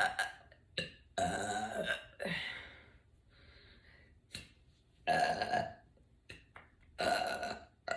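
A woman belching repeatedly, bringing up gas from carbonated sparkling water. There are three long drawn-out burps and several short ones in between.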